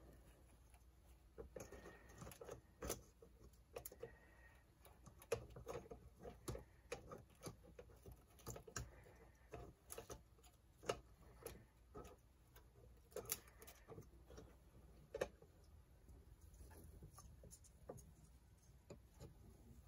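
Faint playback from the Electra TC-505 reel-to-reel tape recorder: scattered irregular clicks and taps over a low steady hum, near silence overall.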